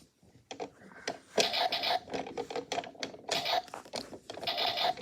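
Repeated scraping, in three similar strokes about a second and a half apart, with a few short clicks between them.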